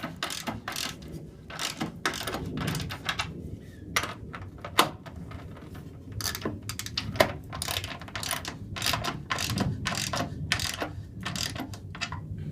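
Ratchet socket wrench clicking in short runs with brief pauses as nuts are tightened down onto carriage bolts, snugging the washers against the wood.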